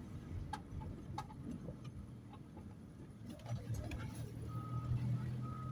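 Vehicle engine and road rumble that swells a little past the middle, with a short high-pitched beep repeating about once a second near the end.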